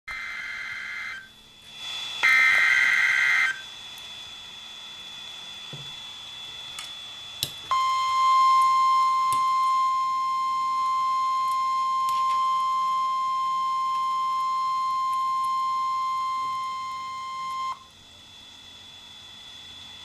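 NOAA Weather Radio emergency alert through a radio speaker: two short buzzy digital SAME header bursts in the first few seconds, then, about eight seconds in, the steady 1050 Hz warning alert tone, held for about ten seconds and cut off, the signal that a warning (here a severe thunderstorm warning) is about to be read.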